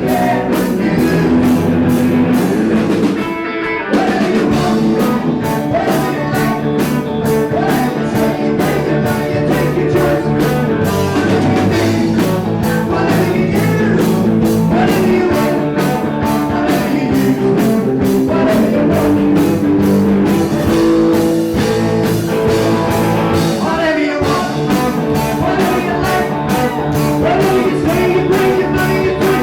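Live rock band playing a song with a singer, electric guitar and drum kit, the drums keeping a steady beat. The band briefly drops out about three and a half seconds in and again near the end.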